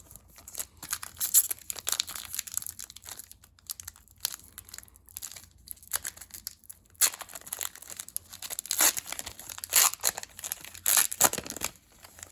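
A hockey card pack wrapper being torn open and crinkled by hand, in a string of short, irregular rustling bursts.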